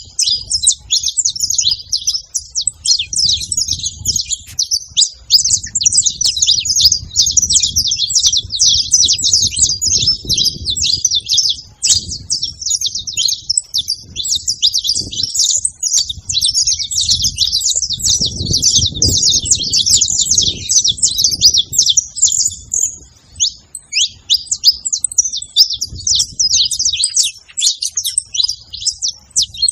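A flock of saffron finches (canário-da-terra) chirping all at once: many high, overlapping calls in a continuous chatter. A low rumble comes and goes underneath.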